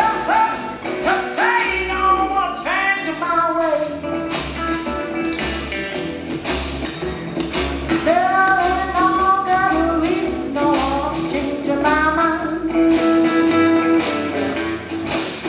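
Live band music: a female lead vocal singing sustained, bending phrases over guitar and a steady beat.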